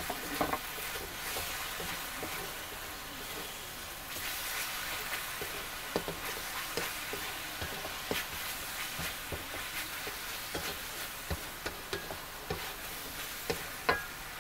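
Marinated beef pieces sizzling in black pepper sauce in a wok while a spatula stirs them, scraping and clicking against the pan again and again over a steady frying hiss.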